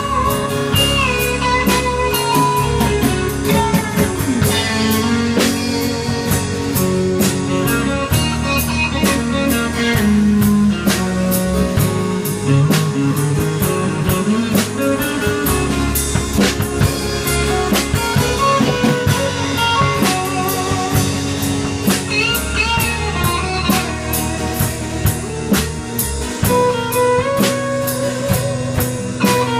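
A live rock band playing an instrumental passage: electric guitar over a drum kit, bass guitar and strummed acoustic guitar, with no singing.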